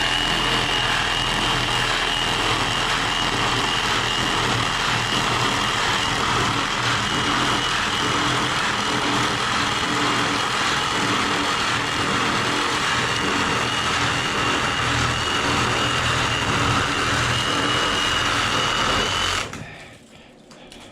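Cordless reciprocating saw cutting through an AC condenser's copper-tube and aluminum-fin coil, running steadily with a high whine, then stopping near the end.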